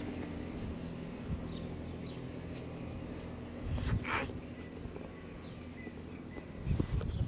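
Steady high-pitched insect chorus, with a couple of low bumps about four seconds in and near the end.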